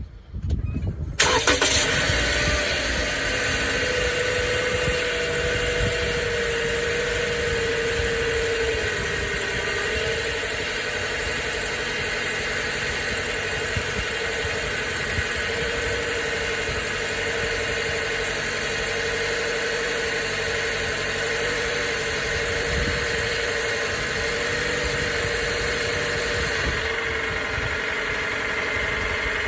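2019 Toyota RAV4's 2.5-litre four-cylinder engine starting about a second in, then idling steadily with a steady tone over it. The owner takes the noise for engine knock.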